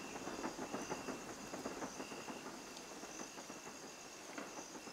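Crickets chirping in short repeated pulses, over a faint crackle of fine clicks that thins out toward the end.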